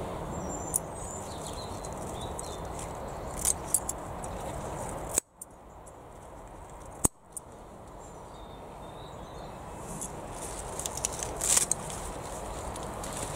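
Hand-harvesting Swiss chard: leaves rustling as they are stripped off the stalks, with a few short snips and clicks and a cluster of them near the end, over a steady outdoor background with faint bird chirps. The background cuts out abruptly for about two seconds midway.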